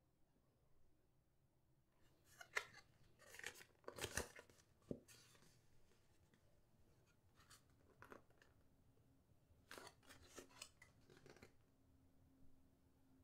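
A glossy photo print being worked by hand, giving short, sharp paper rasps and crackles in two spells: one about two to five seconds in, another around ten to eleven seconds.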